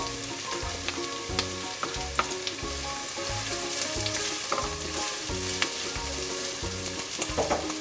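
Chopped onions sizzling in hot cooking oil in a non-stick pot while being stirred with a silicone spatula, with a few light ticks along the way.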